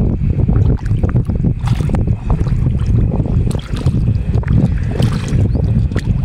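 Hands groping and splashing through sticky mud and shallow water, with repeated wet squelches and sloshes, over a steady low rumble of wind buffeting the microphone.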